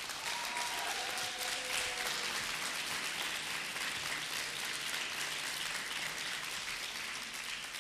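Audience applauding in a hall: dense, steady clapping.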